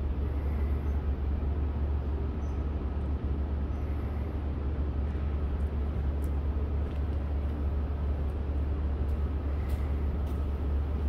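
Steady low rumble of city traffic, with a faint high steady tone and a few faint clicks over it.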